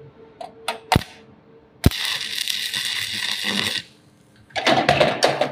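Stick-welding electrode striking an arc on a thick steel plate: two sharp clicks as the rod touches, then about two seconds of steady crackling hiss as the arc melts the steel to pierce a hole, cutting off sharply. A second, shorter burst comes near the end.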